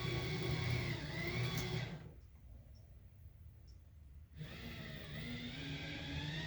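Small portable washing machine's motor humming steadily during a rinse cycle. It stops for about two seconds midway, then starts again, as the washer pauses between turns of the agitator.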